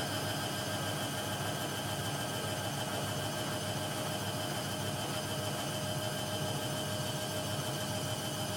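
Hoover 1100 De Luxe washing machine running steadily during its final rinse and spin programme, a constant motor hum with a steady whine over it.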